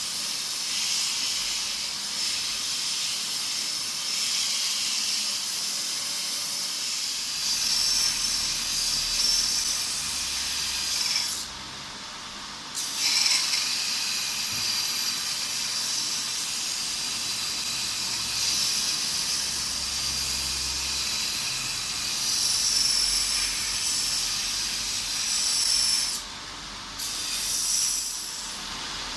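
Homemade belt grinder's abrasive belt grinding metal, a steady, loud hiss. The grinding noise drops away briefly twice, about eleven seconds and twenty-six seconds in, then resumes.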